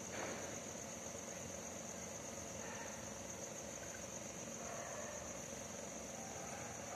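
Steady high-pitched trilling of night insects over a low background hum.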